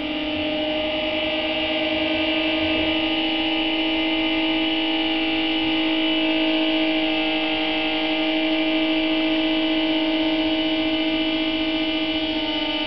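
Ambient music drone: a steady held chord of a few sustained tones with a slight waver and no beat.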